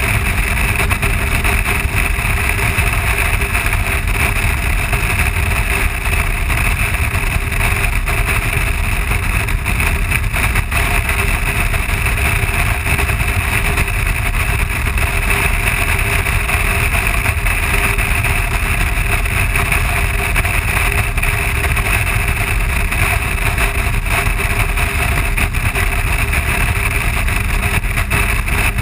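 BMW R1200 boxer-twin motorcycle cruising at steady highway speed. Its engine drone is mixed with heavy, steady wind rush on the helmet-mounted camera.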